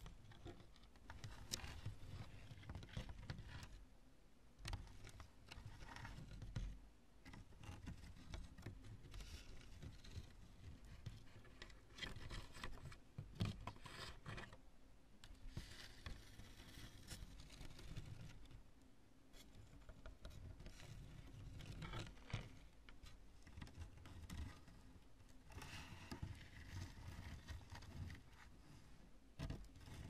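Fingers squeezing and crushing a piece of cured construction foam, giving quiet, irregular bursts of crisp crunching and crackling with short pauses between squeezes, a meringue-like crunch.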